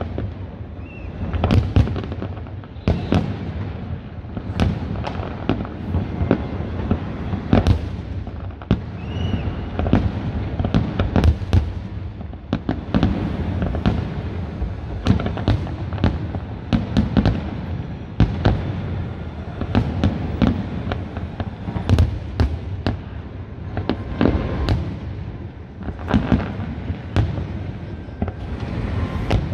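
Fireworks going off in a continuous, irregular barrage of sharp bangs, several a second, over a low rumble.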